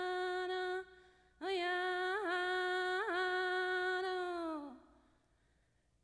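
A woman singing alone, without words, in long held notes with quick little turns in pitch: the sound of traditional Hidatsa women's singing. A short gap breaks the singing about a second in, and the second phrase slides down in pitch and fades out about five seconds in.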